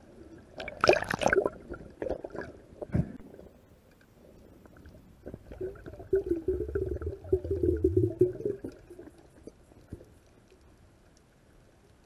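Muffled underwater sound through a submerged camera housing: a burst of bubbling about a second in, then a low gurgling rumble for a few seconds past the middle.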